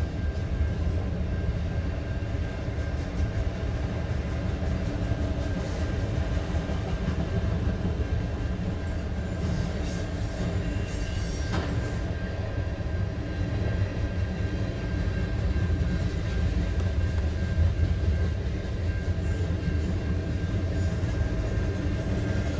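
Freight train's cars rolling steadily past a grade crossing with a low, even rumble, heard from inside a car.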